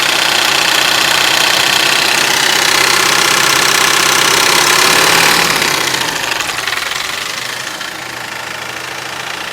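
Mahindra TUV300's three-cylinder diesel engine running at idle with an abnormal engine noise: a layer of high tones over the engine note that is loudest at first and eases off about six seconds in. This is the intermittent engine noise the vehicle came in for, which replacing the high-pressure fuel pump only partly reduced.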